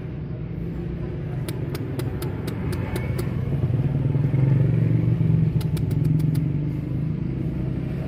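Road traffic: a motor vehicle's engine hum swelling as it passes, loudest around the middle, then easing off. Two short runs of quick sharp ticks, about four a second, sound over it, one early and one after the middle.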